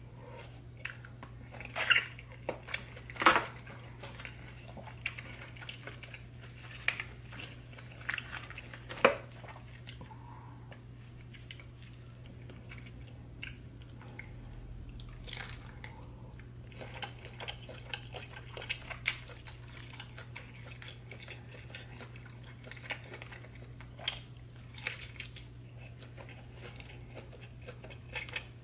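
Close-miked eating of seafood: irregular biting, wet chewing and crunching, with a few sharp loud cracks in the first nine seconds or so, over a steady low hum.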